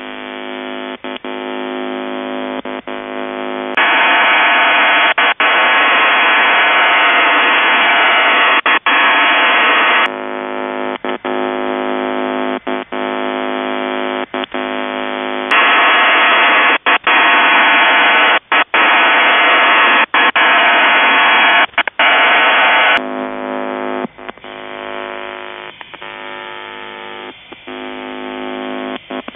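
Shortwave receiver audio of a Russian military HF signal on 7032 kHz: a buzzy chord of many evenly spaced steady tones. Twice it is swamped by a loud hiss lasting six to seven seconds, and the whole signal is broken by frequent brief dropouts.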